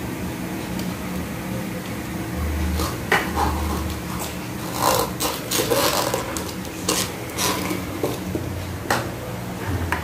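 Plastic cups and bowls being handled and set down on a tiled floor, a string of irregular knocks and clatters over a steady low hum.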